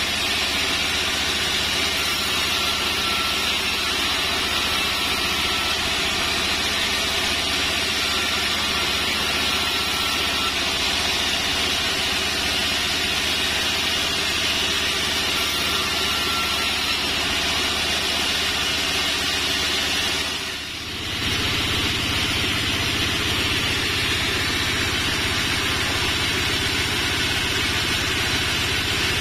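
Band sawmill running steadily, its blade ripping sengon timber into battens. About twenty seconds in the sound dips briefly, then the machine runs on with a heavier low hum.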